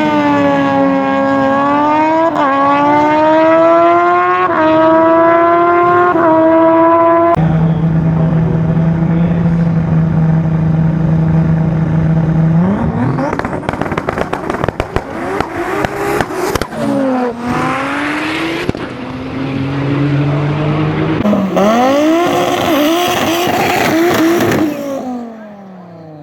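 Drag-racing engines at full throttle. The first climbs in pitch through several gears, dropping back at each upshift. Then an engine holds steady revs before a hard launch with crackling exhaust, and further runs climb sharply before fading near the end.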